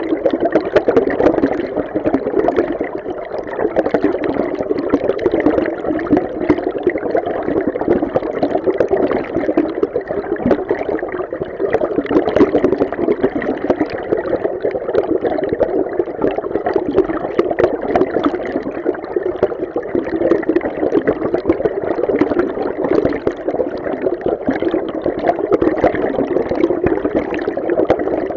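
River stream water heard underwater: a steady, muffled rush with fine bubbling and gurgling, deepest in the lower middle range and without pause or change.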